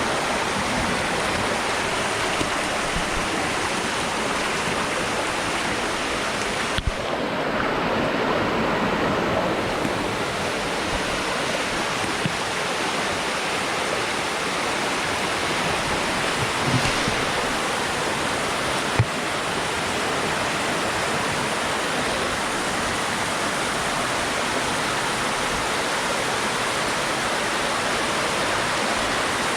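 Waterfall water rushing steadily, with a few faint knocks.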